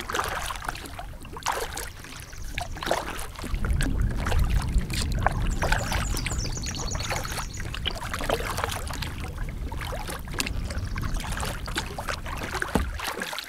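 Canoe paddle strokes: water splashing, trickling and dripping off the blade, with small knocks. A loud low rumble joins about three and a half seconds in and runs until just before the end.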